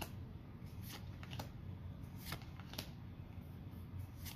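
Pokémon trading cards being flipped through by hand, each card slid off the front of the stack and onto the back with a short, sharp papery flick; about four flicks, spaced irregularly.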